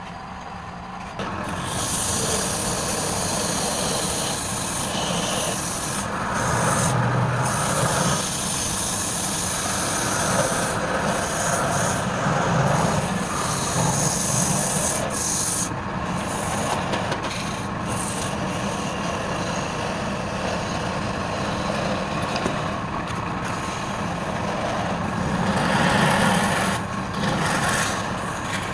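Wood lathe running with a tool scraping and rubbing against the spinning wood, picking up about a second in and swelling and easing as the cut changes.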